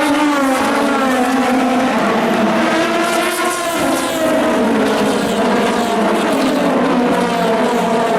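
Several race cars going past together, their engines overlapping in a dense, loud drone, with pitches rising and falling as individual cars come and go.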